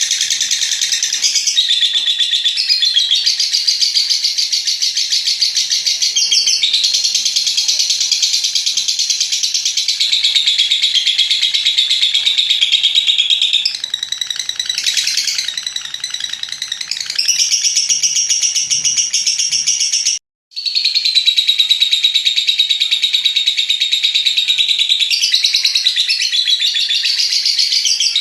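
Lovebird's long 'ngekek' chatter: a high-pitched, very rapid trilling that runs on in long unbroken stretches. There is a sudden short break about twenty seconds in.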